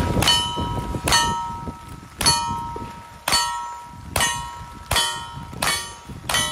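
Rifle shots at a steady pace of about one a second, eight in all, each followed at once by the ringing ping of a hit steel target.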